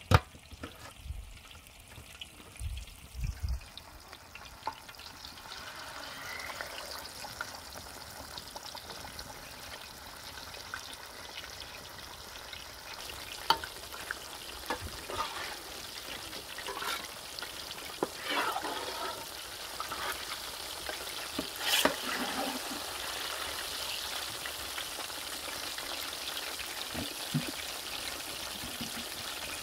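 Whole baby stingrays frying in oil. The sizzle builds up over the first dozen seconds and then holds steady, with a loud knock at the very start and scattered sharp knocks and clatter throughout.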